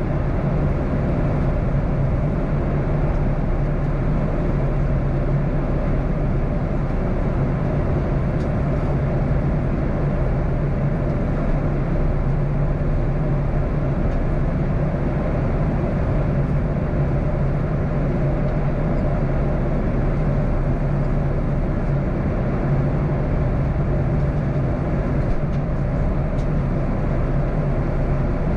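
Steady cabin noise inside a Boeing 737-800 at high altitude, beginning its descent: the even rush of airflow and drone of its CFM56-7B turbofan engines, with a constant low hum underneath.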